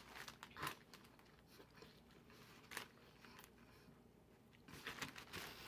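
Faint sounds of a man biting into and chewing a mouthful of chicken wrap, with a few soft clicks, mostly quiet.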